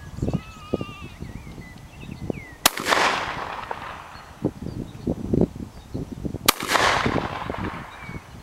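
A 12-bore shotgun fired twice, about four seconds apart, each shot a sharp crack followed by a fading tail of about a second.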